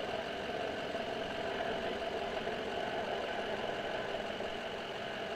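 Steady drone of vehicle engines idling, an even hum that holds without change.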